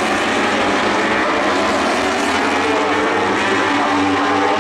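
A pack of racing motorcycles at high revs, many engines running at once, with several pitches rising and falling over one another.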